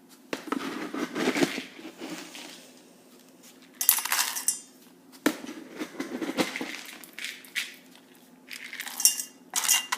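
Dry dog kibble poured and rattling into a bowl in several short bursts.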